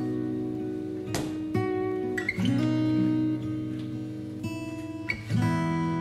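Background music: an acoustic guitar playing slow strummed chords, each chord ringing on until the next strum.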